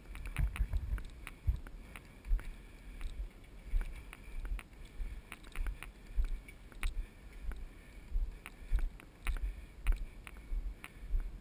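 Low thumps and knocks repeating irregularly about once or twice a second, with scattered sharp clicks between them.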